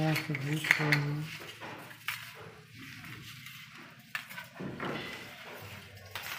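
Clinks and scraping rustles of electrical wire and a steel fish wire being handled and pulled through a concealed wall conduit. A person's short call sounds at the very start.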